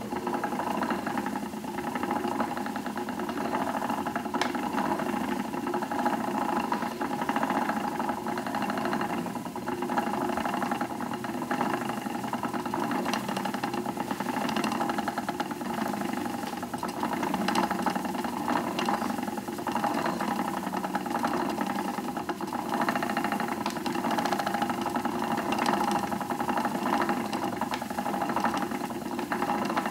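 Wooden treadle spinning wheel running steadily as wool is spun: the drive wheel, flyer and bobbin turning with an even mechanical whir that does not break.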